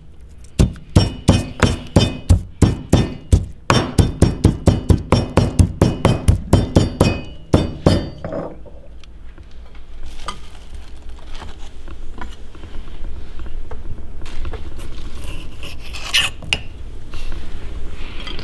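Mortar and pestle pounding garlic and chilies, sharp knocks at about four strokes a second, stopping about eight seconds in. After that, softer scraping and knocking.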